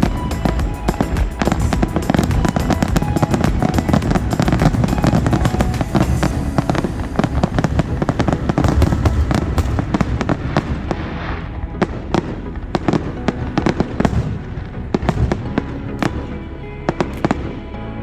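Fireworks display: a dense barrage of bangs and crackling that thins out after about ten seconds into scattered single bangs.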